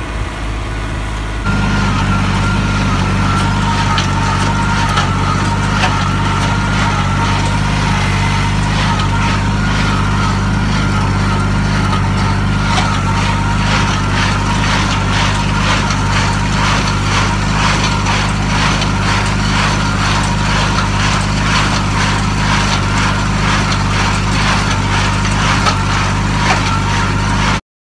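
Tractor engine running steadily while towing a New Holland small square baler, with a steady whine from the drive and the baler's mechanism knocking in an even, repeating rhythm. The sound cuts off abruptly near the end.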